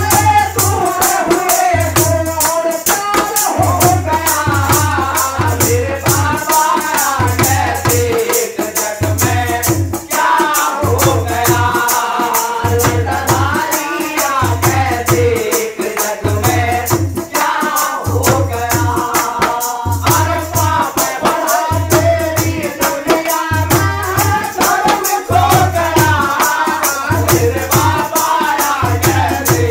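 Live dehati Baba bhajan: a male voice singing through a microphone over the deep strokes of a dholak and a fast, steady rattle of jingling hand percussion.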